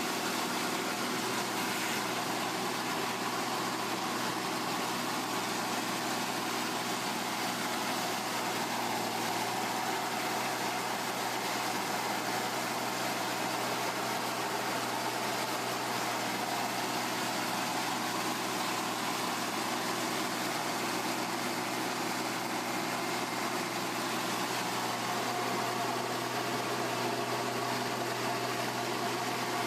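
A machine running steadily with a constant low hum and an even hiss, unchanging throughout.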